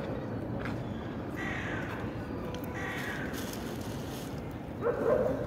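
Crows cawing: a few separate calls, the loudest just before the end.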